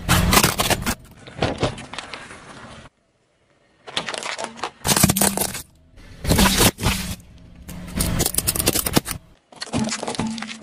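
A car tyre rolling over and crushing plastic toys and drink cartons: several short bursts of cracking and crunching, cut one after another, with a car engine running low underneath.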